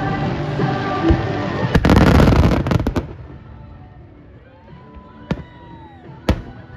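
Fireworks going off over music: a dense run of crackling about two to three seconds in, then, after the level drops, two sharp bangs about a second apart.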